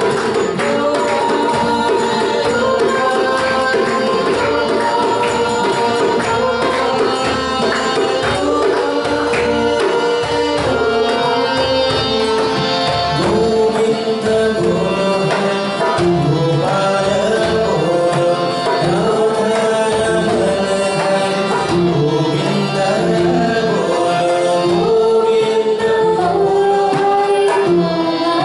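Live kirtan music: voices singing a Krishna chant over a steady hand-drum rhythm, with electric guitar accompaniment.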